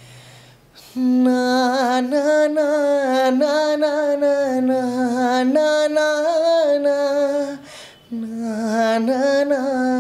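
A man singing unaccompanied, holding long notes that waver slowly in pitch. The singing starts about a second in, breaks off briefly around the eighth second, then carries on.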